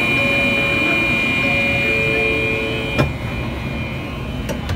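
Shinkansen sliding passenger door closing, shutting with a knock about three seconds in, with two small clicks near the end. Steady tones run underneath, and some of them stop as the door shuts.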